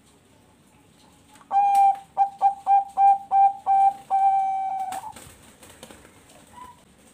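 Bangkok-strain zebra dove (perkutut) singing its song. It opens with one coo, runs through about seven short coos at the same pitch, and ends on a longer held note, all between about one and a half and five seconds in.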